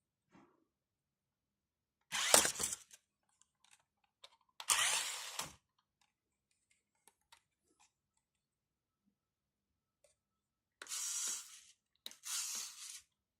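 Small electric motor of a toy RC monster car running in four short bursts of under a second each, two close together in the first half and two near the end.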